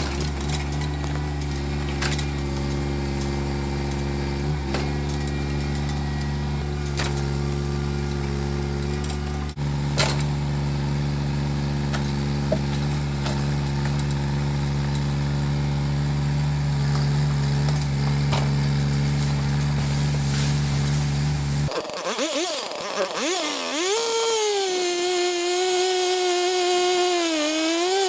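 A heavy engine runs steadily at a low pitch for about twenty seconds, then cuts abruptly to a two-stroke chainsaw running at high speed, its pitch dipping and rising as it works.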